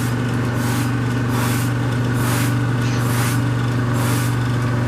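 A hand spray bottle squirting water in short hissy bursts, about one a second, over a steady low electrical hum.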